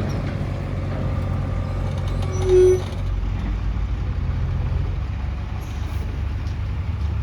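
Heavy diesel engine running steadily with a low drone. About two and a half seconds in there is one short, loud beep-like tone.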